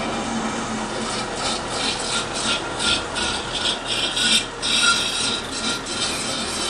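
Distek VIP 4400 dissolution vessel washer running a wash cycle: water from its universal wash nozzle spraying and splashing against the inside of a glass dissolution vessel while the vessel drains. From about a second in, the spray hisses in quick, uneven pulses, about four a second, over a low steady hum.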